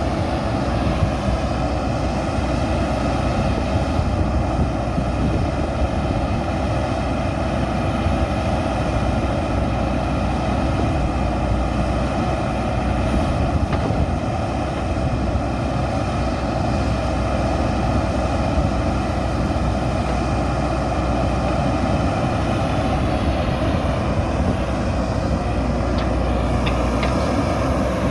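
JCB 3DX backhoe loader's diesel engine running steadily under work.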